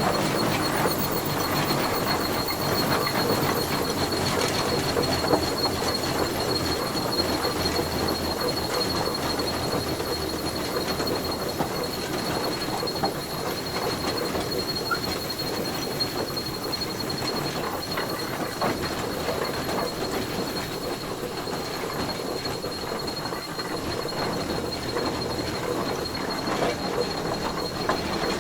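Tractor running steadily, a dense rattling rumble with a thin, constant high whine over it.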